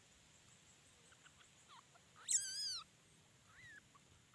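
A young cat, a frightened kitten, giving one high, wavering mew about two seconds in, with a few faint short squeaks before and after it.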